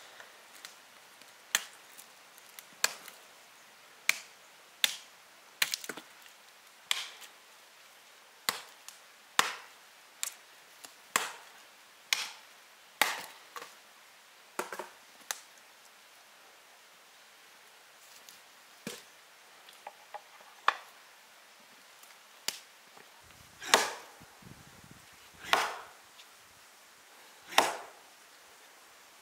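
Repeated chopping: a blade striking into wood about once a second, with a pause of a few seconds past the middle, then slower, heavier strikes near the end.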